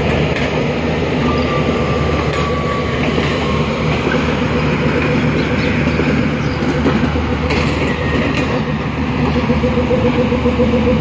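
Pakistan Railways passenger coaches rolling past: a steady rumble of wheels on the rails with a few clicks from the rail joints. A steady hum from the power van's generators grows louder near the end.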